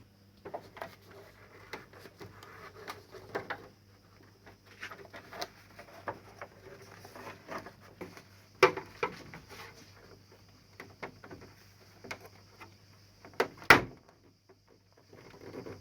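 Irregular clicks and knocks of things being handled, with two sharper knocks, one about halfway through and one near the end, over the steady low hum of a split air conditioner's indoor unit running after being switched back on.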